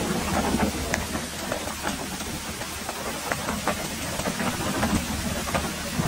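Heavy wind-driven rain in a strong gale: a steady rushing hiss with wind buffeting the microphone in a low rumble, and many sharp ticks of drops striking close by.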